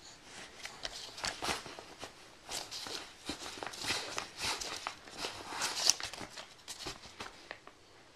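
Irregular rustling and scuffing of paper and fabric, a quick uneven run of soft scrapes and ticks. The sharpest tick comes about six seconds in.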